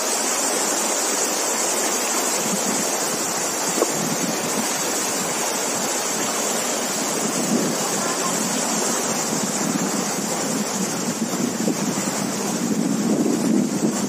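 Shallow stream water running steadily over stones, with wind buffeting the microphone in the second half, strongest near the end.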